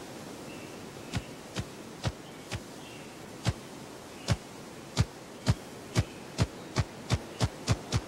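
Ruffed grouse cock drumming with his wings: a series of low thumps that starts slow, about a second in, and speeds up steadily, reaching about three a second near the end as it builds toward a rapid roll.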